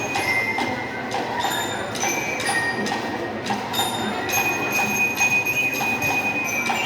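Marching band playing: drums keep a steady beat while bell-lyres ring out high metallic notes, one note held from a little past halfway to the end.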